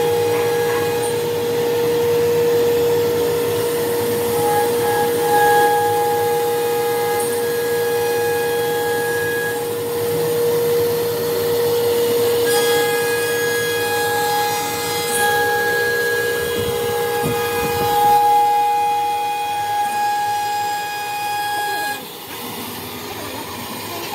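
Holztek RT1325V single-spindle CNC router cutting a wood panel: a steady high-pitched spindle whine over the noise of the bit in the board, with a higher tone that comes and goes as the cut goes on. It gets quieter near the end.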